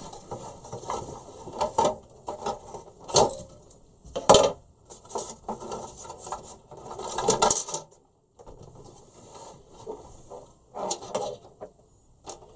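Plastic end cover of a Truma Combi heater being worked loose and pulled off by hand: irregular clicks, knocks and scraping of plastic on plastic, with a few sharper knocks.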